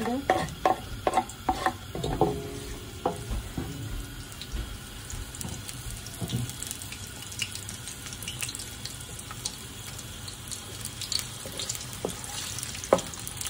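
Red and white onions frying in hot oil in a cooking pot: a steady sizzle with fine crackles. Several knocks sound in the first three seconds.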